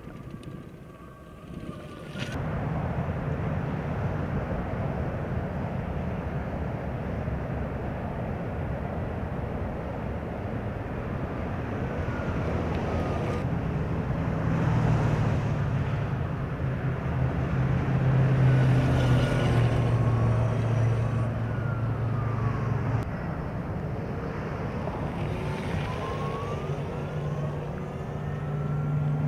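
Zero electric police motorcycle riding by, with tyre and wind rush and a faint electric motor whine rising and falling in pitch, over a steady low hum. The noise comes in suddenly about two seconds in.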